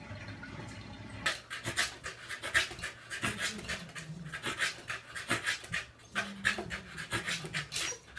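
Corgi panting hard, quick rasping breaths about three or four a second, starting about a second in.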